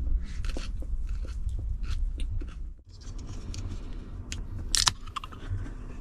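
A person biting and chewing a chicken wrap close to the microphone: crunchy chews and small crackles over a steady low rumble, with a brief gap near the middle.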